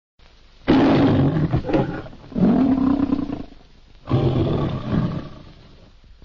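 The Metro-Goldwyn-Mayer logo lion roaring three times, each roar fading out, on an old film soundtrack.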